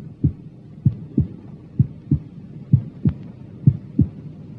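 Normal human heart sounds heard through auscultation at Botkin's (Erb's) point: a regular lub-dub of the first and second heart tones. The gap within each pair is short and the pause before the next pair is longer, with about five beats at roughly 65 a minute.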